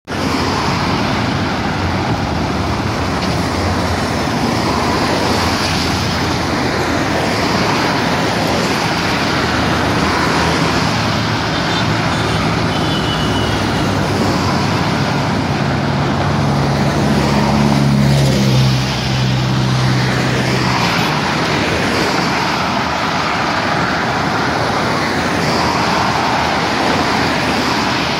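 Steady road noise from a car driving along a highway, tyre and wind noise without a break. A low engine hum rises for a few seconds about two-thirds of the way through, then falls away.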